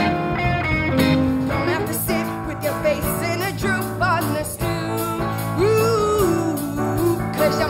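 A girl singing a show tune solo, with band accompaniment.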